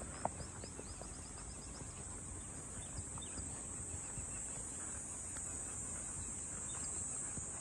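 Faint outdoor ambience of a horse walking on a sandy path, its hoof steps soft and scattered, under a steady high insect buzz; a bird gives a quick run of chirps about a second in.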